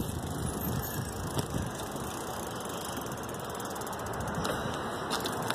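Bicycle freewheel ticking steadily as the bike coasts.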